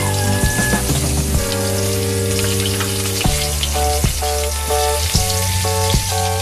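Chopped onion frying in hot mustard oil with nigella seeds in a steel kadai: a steady sizzle, with a few clinks of a metal spatula stirring against the pan. Background music with held notes plays under it.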